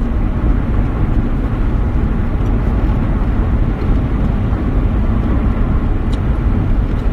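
Steady, loud low rumbling noise with no clear pitch, the kind heard as road and wind noise while riding in a moving vehicle.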